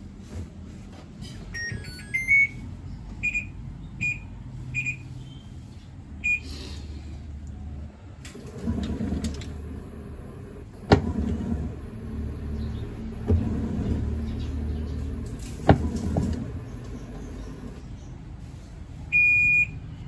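Panasonic top-load washing machine's control panel beeping as its buttons are pressed: a short rising jingle, then several single beeps. Its inverter motor then turns the pulsator to sense the load, a low hum and rattle of the clothes with two sharp clicks, and near the end a longer beep as the Start/Pause button is pressed.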